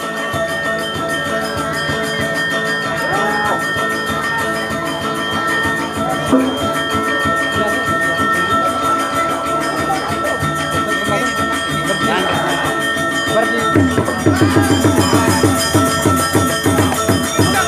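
Balinese gamelan playing, with steady ringing metallophone tones. About 14 s in, a fast, even beat comes in and the music gets louder.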